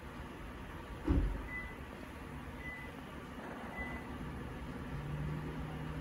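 Steady low background rumble with one dull thump about a second in and a low steady hum coming in near the end.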